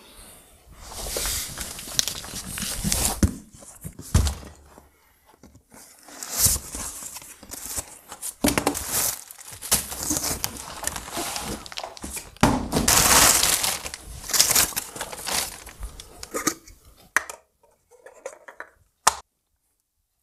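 Cardboard box and its plastic and paper packing being handled, torn and crinkled as a part is unpacked by hand: a run of irregular rustling bursts.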